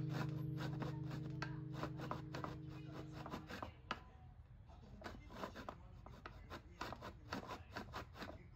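Acoustic guitar background music dies away on a held chord that stops about three and a half seconds in, over faint, irregular light scratches and clicks of hand work.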